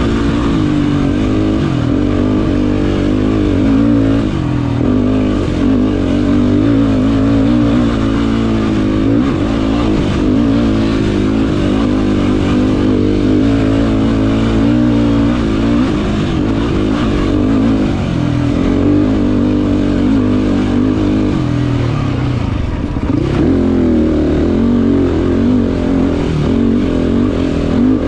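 Race quad's engine under hard riding, revving up and down over and over as the throttle is worked, loud and unbroken.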